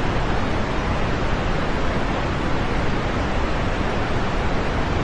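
Steady rain, a continuous even hiss with no separate drops or thunder standing out.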